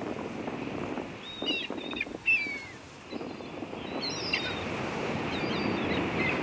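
Small sea waves washing onto a sandy shore in a steady wash, with short high bird chirps over it, a cluster about a second in and again about four seconds in.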